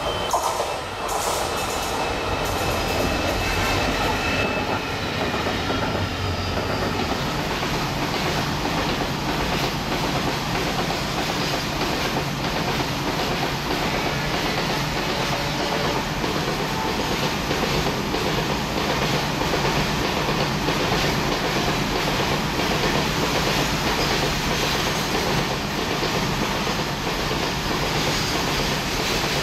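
EMD WDG-4 (GT46MAC) and WDG-4D diesel-electric locomotives pass with a freight train, their deep engine drone strongest for about the first seven seconds. After that a long string of freight wagons rolls by with steady wheel clickety-clack over the rail joints.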